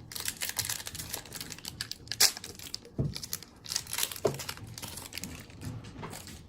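Plastic wrapper of a baseball card pack crinkling and crackling as it is handled, with a sharp louder crackle about two seconds in.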